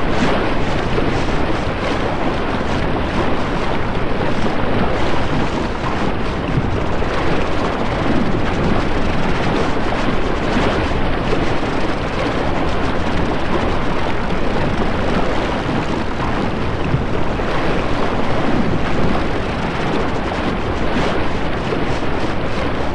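A steady rushing noise of wind and sea waves.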